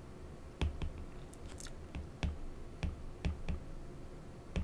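Stylus tip tapping and ticking on a tablet's glass screen while handwriting: a string of about ten faint, irregular clicks.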